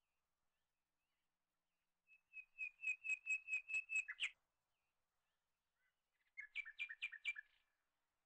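A small songbird singing two short phrases of quick, high repeated chirps. The first, about two seconds in, runs for about two seconds at roughly five notes a second and ends on a louder note. The second, shorter one comes near the end.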